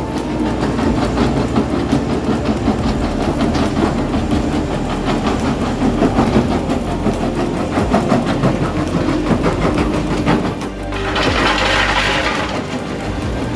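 Skid steer's diesel engine running under load while an MB Crusher bucket crunches and cracks concrete rubble, with a louder gritty rush of falling material near the end.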